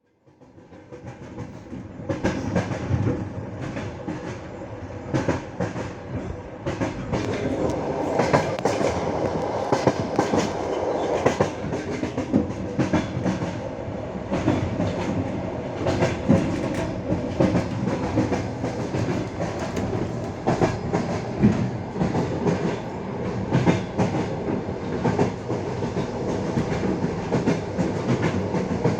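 Wheels of a moving passenger train clacking over the rail joints: a steady rumble with repeated sharp clacks, fading in over the first two seconds.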